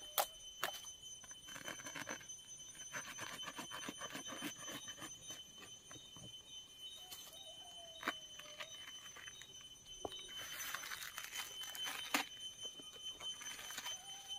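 Dry papery sheaths of a bamboo shoot crackling and rustling under the hands as they are handled and torn away, with a denser, scratchier rustle near the end. A steady high-pitched tone runs underneath.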